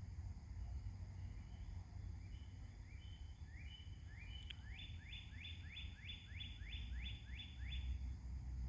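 Mockingbird calling: a long run of short notes that each sweep upward, about three a second, starting faint and growing louder about halfway through. A steady low rumble runs underneath.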